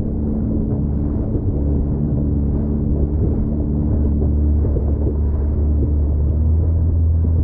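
Yamaha VXR 1.8 WaveRunner's four-stroke engine running steadily underway: a low, even drone with a hum above it.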